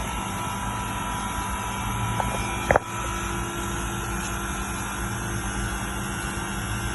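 Air conditioning unit running with a steady mechanical hum and a few steady whining tones. About two and a half seconds in there is a faint click, then a brief, loud, sharp squeak.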